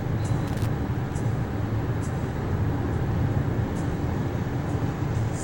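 Steady low crowd murmur and hall noise of a busy indoor convention, with faint high ticks about once a second.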